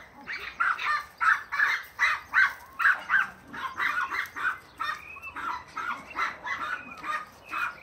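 A dog yapping over and over in short, high-pitched barks, about three a second, some of them breaking into yips that bend in pitch.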